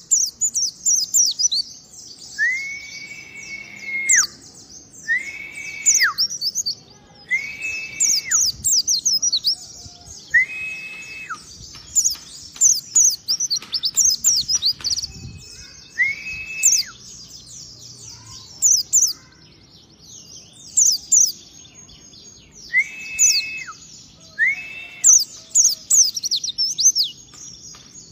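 Caged white-eyes singing: fast, high chirping trills in repeated bursts. A lower, drawn-out whistle that rises and falls slightly sounds about eight times among them.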